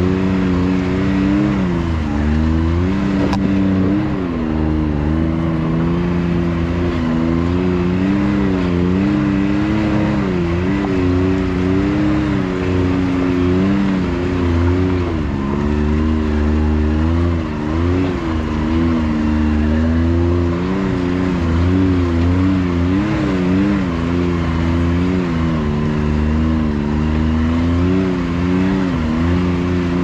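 Can-Am Maverick X3 side-by-side's turbocharged three-cylinder engine running at low speed, its revs rising and falling again and again as it crawls over rock.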